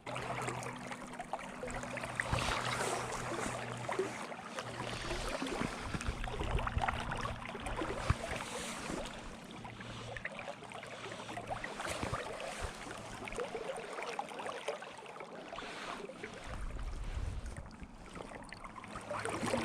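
River water running steadily over rocks, with wind rumbling on the microphone at times.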